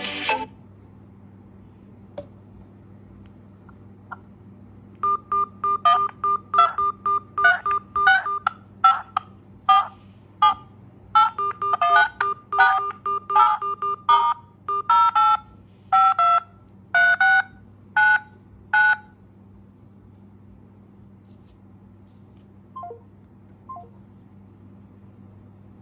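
Samsung Galaxy smartphone in-call keypad tones (DTMF): about twenty short two-note touch-tone beeps, one per digit pressed, in an uneven run from about five to nineteen seconds in. A ringtone cuts off at the very start as the call is answered, and two faint short beeps come near the end.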